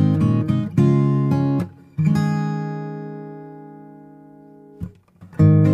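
Background music: acoustic guitar strumming chords. About two seconds in, one chord is left to ring and fades away for nearly three seconds before the strumming starts again near the end.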